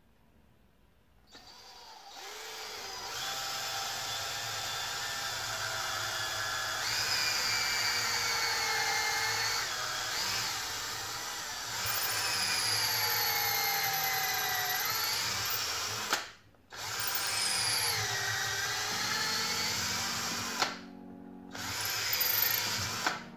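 Electric hand drill boring holes through a round wooden dowel, its motor whine sagging and rising in pitch as the bit loads up in the wood. It stops briefly twice near the end and starts again.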